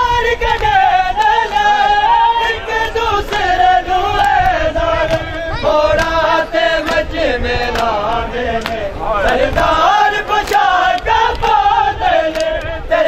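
Men chanting a Shia mourning nauha, one strong melodic voice carried with the group, over many sharp slaps of chest-beating (matam).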